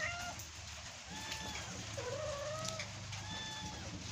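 Kitten mewing repeatedly, thin high calls about once a second, calling for its mother because it wants to get down from a low roof.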